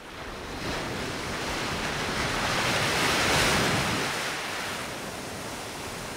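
A rushing whoosh of noise that swells to a peak about three and a half seconds in and then fades.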